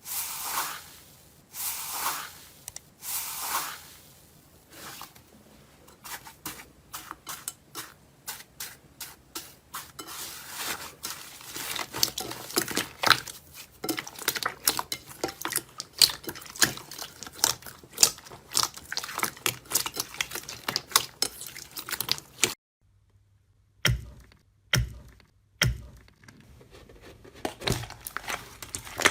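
Close-miked slime being handled. Soft squishy swells come first, then a long stretch of dense crackling and crunching. About 23 seconds in it cuts off, and a few separate crunches follow.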